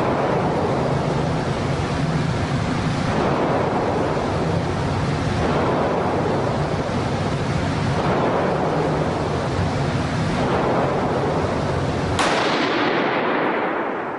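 A series of rifle shots from a 6.5 Grendel AR-15, roughly every two to three seconds, each trailing off into the echo of a concrete indoor range and squashed into a near-constant roar by the recording. The sharpest shot comes about twelve seconds in.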